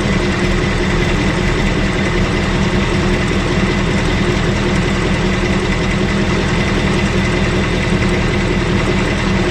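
Ford Mustang GT's third-generation 5.0 L Coyote V8 idling steadily, with the engine tick that the owner hears in a subdued form on the new engine after its first oil change.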